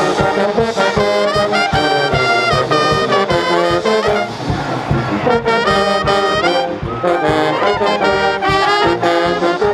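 Pep band brass section, trombones and trumpets, playing a loud up-tempo tune over a steady drum beat, with a short break in the melody about halfway through before the horns come back in.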